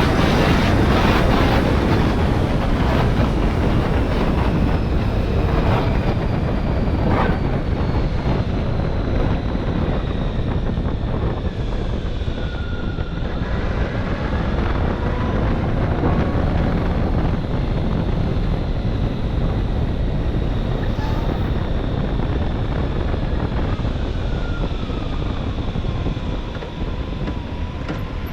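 Motorcycle riding along a road: steady engine and road noise under heavy wind buffeting on the microphone, with a faint tone that slowly rises and falls in pitch.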